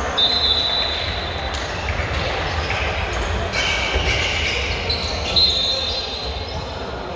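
Players' sports shoes squeaking in high, short squeals on a wooden handball court, twice strongly, with a handball bouncing on the floor and the low hum of a large hall behind.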